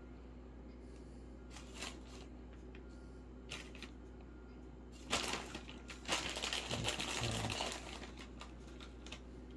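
Plastic bag of pepper and onion pieces rustling and crinkling as a hand reaches in and grabs a handful. The rustling is loudest for two or three seconds past the middle, after a few light ticks early on.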